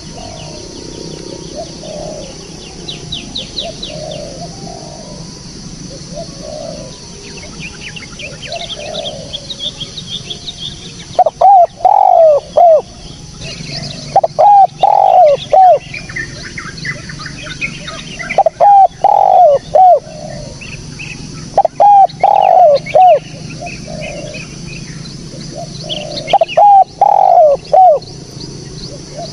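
Spotted dove cooing. Softer, more distant coos come first, and from about eleven seconds in, loud close phrases of three or four notes repeat every few seconds. Other small birds chirp high above it, over a steady high hiss.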